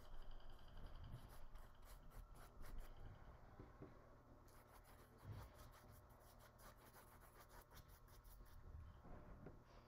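Faint brushing: a paintbrush stroking acrylic paint onto the painting surface in short, irregular scratchy strokes.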